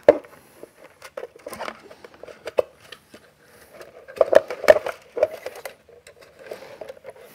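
Hard plastic filament cartridge and filament spool handled and fitted together: irregular clicks and knocks of plastic on plastic, loudest right at the start and again about four to five seconds in.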